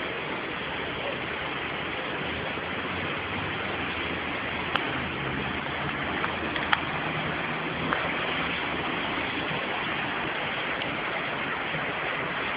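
Floodwater of an overflowing river rushing steadily, with a few short sharp knocks around the middle.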